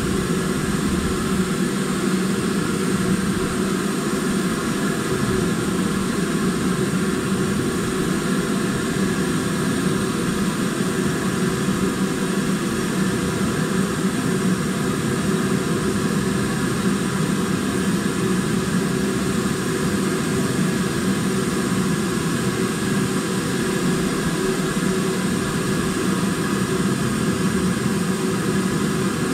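BR Standard Class 5 steam locomotive 73156 heard from the engine: a loud, steady roar and rumble with no distinct beats or breaks.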